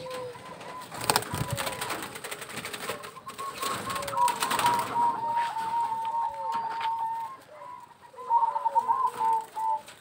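Zebra doves (perkutut) cooing, a long run of short repeated notes, densest through the second half. Clicking and rustling sounds run through the first half.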